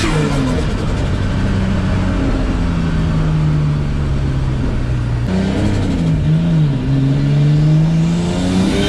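Nissan S14's RB25DET turbo straight-six engine driven under throttle. The revs drop at the start and hold fairly steady, then change abruptly about five seconds in, dipping and climbing again near the end.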